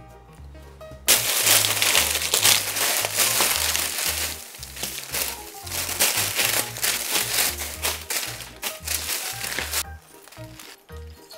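Plastic packaging crinkling and crackling loudly for about nine seconds, starting about a second in and stopping abruptly near the end, over background music with a steady bass line.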